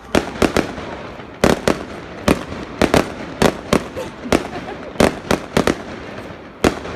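Fireworks display: a rapid, irregular series of sharp bangs, often two or three in quick succession, about seventeen in all.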